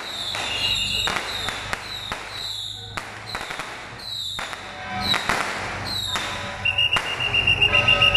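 Firecrackers going off in irregular sharp bangs, mixed with music. Near the end a steady high pulsing tone joins in and the bangs come louder and faster.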